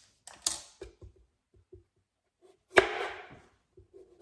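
A kitchen knife chopping through a pickling cucumber onto a cutting board: light handling knocks, then one sharp chop about two-thirds of the way in.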